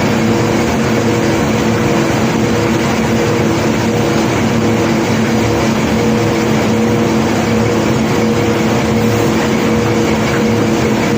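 Heavy diesel engine of the unloading machinery running steadily at constant speed: a continuous drone with a steady hum.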